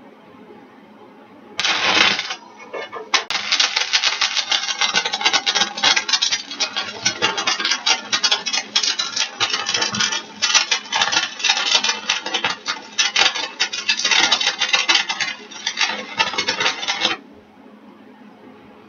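Stick-welding arc from a 1/8-inch 7018 electrode at about 126 amps. It strikes about a second and a half in, sputters briefly and drops out, then re-strikes and crackles steadily for about fourteen seconds before stopping near the end.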